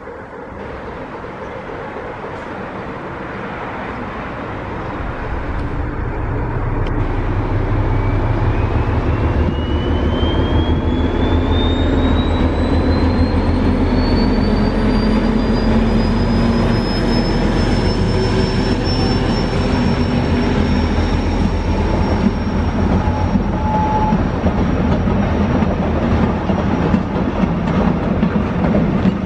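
Diesel locomotive pulling a train away under load, its engine drone growing louder over the first several seconds as it approaches and crosses the bridge, then holding steady. A thin high whine rises in pitch for about ten seconds, then holds. Near the end the wagons roll past.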